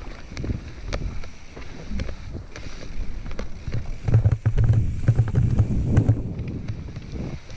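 Mountain bike descending rocky forest singletrack: tyres rumbling over dirt, roots and rocks, with the bike clattering and rattling on the rough ground and wind on the microphone. The rumble gets louder about four seconds in and eases near the end.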